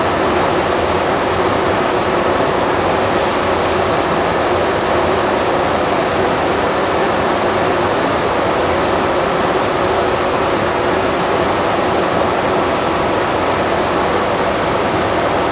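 Industrial machinery running, heard as a loud, steady rushing noise that holds level with no rhythm or distinct strokes.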